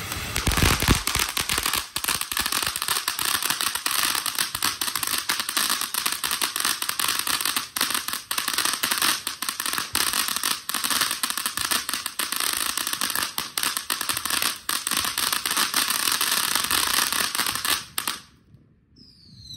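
TNT Fireworks 'Crypto' ground fountain firework spraying sparks with a dense, continuous crackle of tiny pops. It cuts off suddenly near the end as the fountain burns out.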